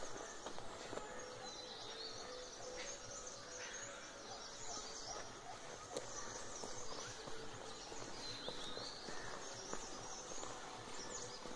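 Forest ambience: footsteps on a dry, leaf-strewn dirt track, with birds chirping, one short chirp call heard about a second in and again near the end.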